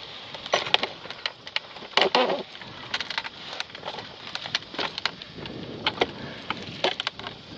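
Airflow buffeting a camera microphone on a hang glider in flight: a steady rush with irregular sharp crackles and pops, the loudest cluster about two seconds in.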